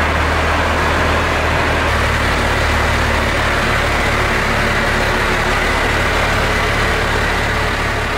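First-generation Dodge Cummins 5.9 L inline-six diesel running steadily at idle.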